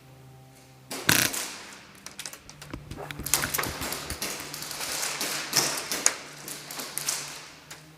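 Airsoft screamer grenade going off: a sharp bang about a second in, then several seconds of loud hissing shot through with rapid crackling clicks, fading out near the end.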